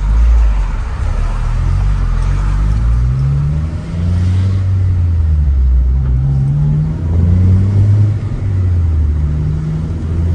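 Acura RSX (DC5) four-cylinder engine accelerating hard under load. Its pitch climbs and drops back several times as it shifts up through the gears.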